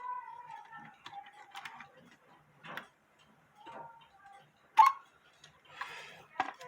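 Quarter-hour cuckoo clock movement running with light, irregular mechanical clicking, and two sharp clicks about five seconds apart, the first followed by a brief ringing tone.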